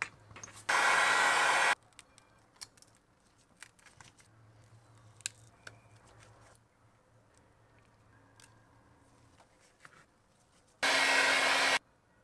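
A blowing air tool switched on twice in short bursts of about a second each, a rushing hiss with a motor tone under it, starting and stopping abruptly. Between the bursts there are faint clicks and taps of small tools on the phone over a low hum.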